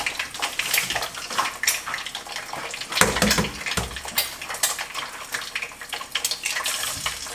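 Egg frying in hot coconut oil in a pan, sizzling with a dense run of sharp crackles and spatters. A louder knock comes about three seconds in.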